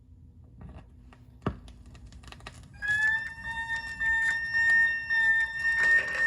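Opening of a 1969 vinyl record: surface crackle and clicks, with one sharp click early on. Then, about three seconds in, a steady high sustained note with overtones comes in and holds.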